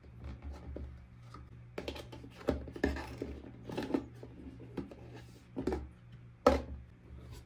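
Hands handling small plastic toy pieces and packaging from a toy pet set: irregular clicks, taps and light rustles, with a louder knock about six and a half seconds in.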